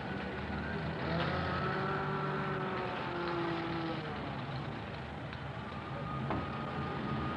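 City street traffic: vehicle engines running steadily, with a long, wavering tone that drifts in pitch between about one and four seconds in.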